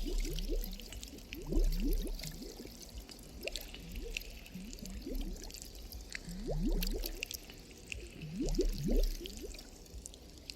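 Thermal-bath water bubbling and dripping, with clusters of short rising gurgles and scattered drips. Beneath it, a deep low pulse swells about every two seconds: the audience's averaged collective heartbeat.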